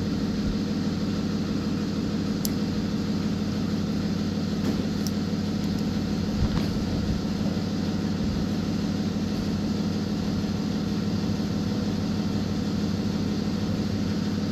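Steady low electric-motor hum of shop machinery. A few faint, light metal clicks come from the hex key and cutter being handled as the valve-seat cutter is set.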